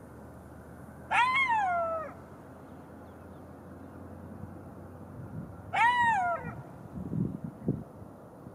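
Golden jackal giving two howls about four and a half seconds apart, each a single call of about a second that rises then falls in pitch. A few low thuds come near the end.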